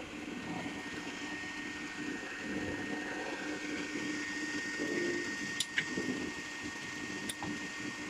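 Daba slitting and rewinding machine running: a steady mechanical hum with a high whine, and a couple of sharp clicks in the second half.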